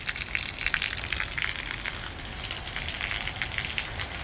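Heavy thunderstorm rain in a downpour: a dense, steady hiss of drops splashing, with water gushing.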